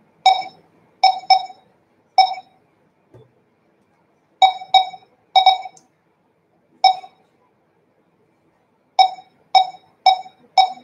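XT7110 1D laser barcode scanner giving about a dozen short, identical beeps in irregular groups as a package's barcodes are held to its laser window.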